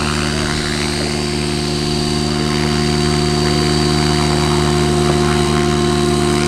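Electric radio-controlled model helicopter in flight: a steady whine of rotor and motor at constant pitch, growing a little louder a few seconds in.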